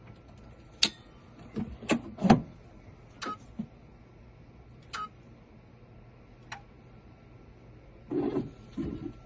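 Sharp metallic clicks and knocks as key blanks are handled and clamped into a key-cutting machine, about six spread over several seconds, then a short clatter near the end.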